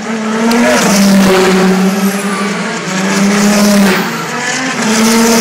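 Le Mans 24 Hours race cars passing one after another on the warm-up lap, several engines droning together at a fairly steady pitch. It gets louder about a second in, again near four seconds and near the end as the cars go by.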